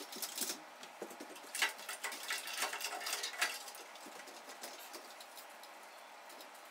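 Installation handling noise: a run of small clicks, taps and rattles as parts, cords and a stepladder are moved. It dies down after about three and a half seconds to a faint steady hiss.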